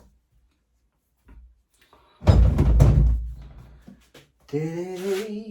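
A loud, heavy thump with a brief clatter about two seconds in, like a tool or part knocked or set down on a workbench. Near the end comes a short hummed voice sound.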